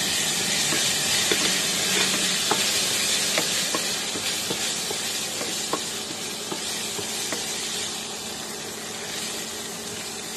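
Garlic and black beans sizzling in hot oil in a wok, stirred with a wooden spatula that scrapes and taps against the pan now and then. The sizzle slowly dies down.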